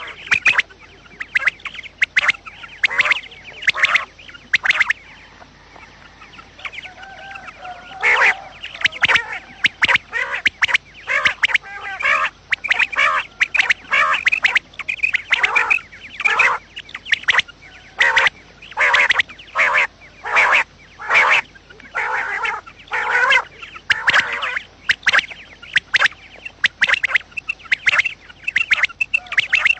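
Quail calling over and over: short, sharp calls repeated in quick groups. There is a lull of a few seconds about five seconds in, then the calls resume just as densely.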